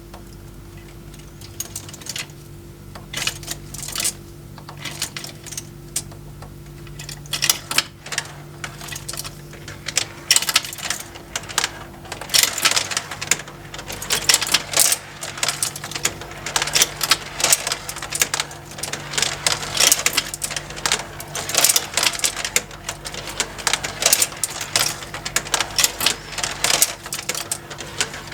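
Motorized plastic marble run: a small electric motor hums steadily while marbles click and rattle against the plastic conveyors and tracks. The clicking starts sparse and becomes a dense clatter about a third of the way in.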